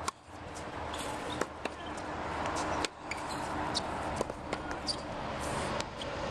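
Tennis racket striking the ball on groundstrokes, with the ball bouncing on a hard court: several sharp pops over steady background noise.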